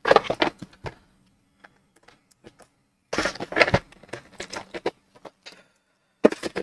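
Cardboard box of acrylic markers handled and turned over in the hands: bursts of rustling and scraping near the start and again about three seconds in, with a few light clicks between.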